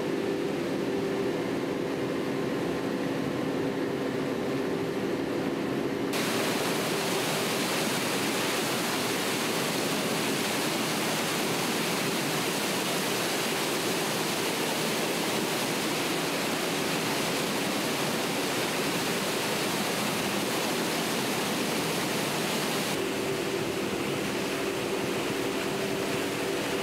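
Steady hum of mill machinery. About six seconds in, it gives way to a loud, even rushing of water and paper churning inside a pulper, the vat whose large impeller beats recycled milk cartons into pulp. Near the end the machinery hum returns.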